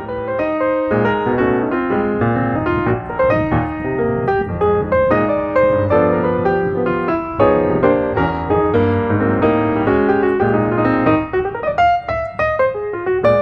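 Background piano music: a flowing melody of many notes over held chords.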